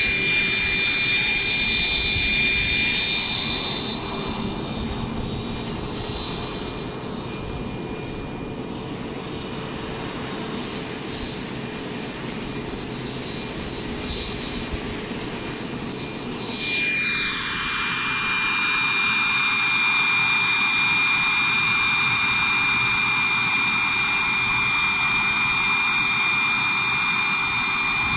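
Wren 44i gas turbine in an RC helicopter running with a steady high-pitched whine throughout. It is quieter through the middle while the helicopter sits on the ground, then the turbine and rotor noise swell about sixteen seconds in as the helicopter lifts off and flies.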